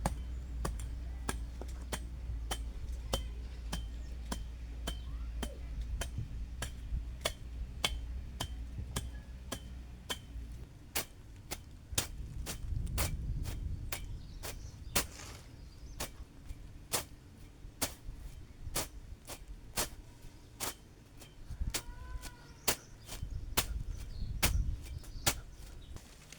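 Overgrown grass being trimmed by hand: a long, even run of sharp cutting strikes, about two a second.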